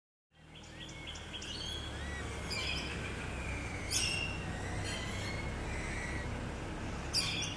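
Small birds chirping and whistling, many short chirps and little rising calls, with louder bursts of chirping about four and seven seconds in. A steady low rumble runs underneath.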